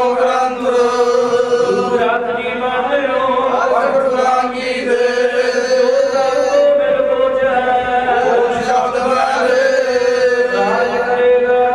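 Several men's voices chanting a Sikh prayer together into a microphone, with long held notes.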